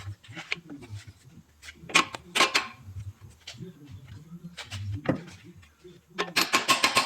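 Hand tools clicking and clanking against metal parts, with a cluster of knocks about two seconds in and a fast run of clicks near the end.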